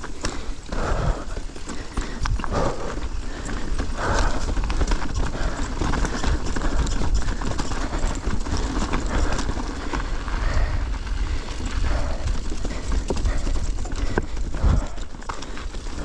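Mountain bike clattering down a rocky technical trail: a steady run of knocks and rattles from the tyres, chain and suspension hitting rock, over a low rumble of wind and rolling noise on the GoPro's microphone.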